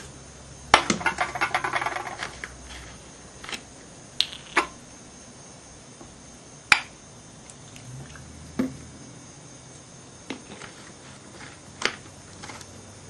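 Aluminium drink cans and a bottle being handled on a concrete floor: a sharp clack about a second in, followed by a rattling run of quick clicks for a second or so, then scattered single knocks and clicks a second or two apart.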